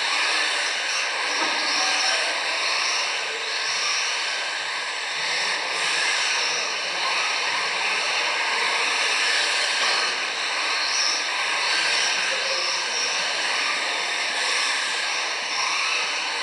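Electric 1:10 RC touring cars racing on a carpet track: a steady high-pitched whine of motors and drivetrains with tyre hiss, swelling and fading a little as cars pass.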